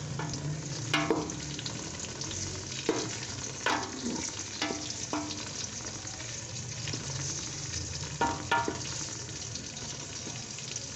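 Sliced onions and whole garlic cloves sizzling in oil in a pot. A spatula stirs them, scraping and knocking against the pot several times.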